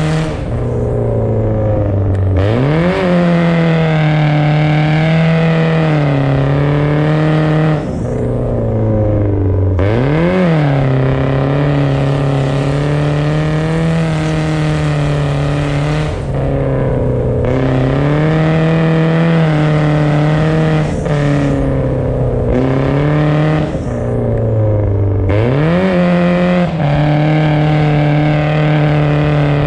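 BMW car engine held at high revs while drifting on ice, a steady drone that dips and quickly climbs back up about two seconds in, again around ten seconds and near twenty-five seconds.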